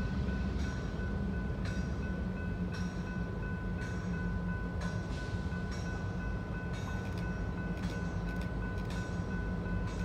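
Distant diesel freight train out of sight: a low steady rumble with a faint steady whine and soft ticks about once a second.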